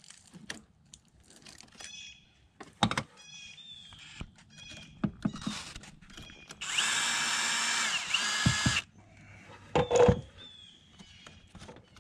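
Cordless drill running once for about two seconds, fastening the chimney pipe's locking collar, its pitch dipping briefly just before it stops. Scattered knocks on the metal roof come before and after.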